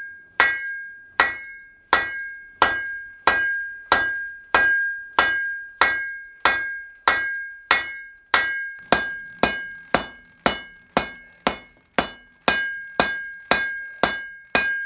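Blacksmith's hand hammer striking iron on an anvil in a steady rhythm, about two blows a second and quickening slightly, each blow followed by a bright metallic ring. The smith is drawing out the iron blank for a hasp.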